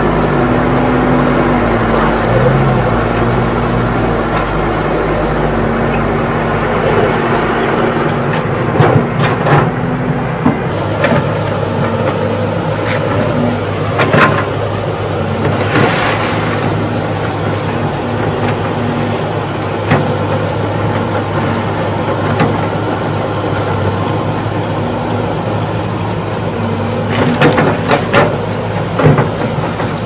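Caterpillar E120B hydraulic excavator's diesel engine running under load while it digs, its pitch shifting as the hydraulics work. Scattered sharp knocks of the bucket and tracks, with a cluster of them near the end.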